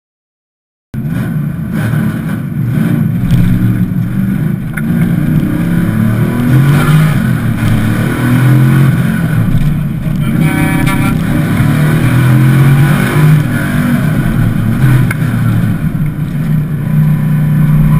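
A 1994 Pontiac Firebird Formula's LT1 V8 heard from inside the cabin, cutting in suddenly about a second in and running hard under load, its revs rising and falling as the car is driven through an autocross course.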